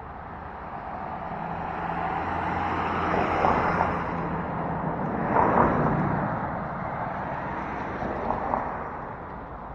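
A motor vehicle passing by on a road, its engine and tyre noise growing louder, peaking around the middle and fading away.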